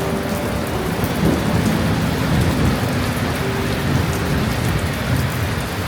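Heavy rain pouring down, with thunder rumbling low and heavy underneath.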